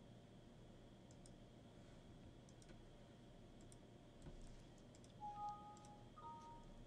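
Near silence with a few faint computer mouse clicks, and a couple of faint short two-note beeps near the end.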